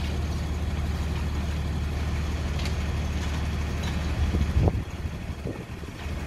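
Steady low hum of an idling vehicle engine, with a few heavy clunks a little over four seconds in as a metal extension ladder is pitched upright.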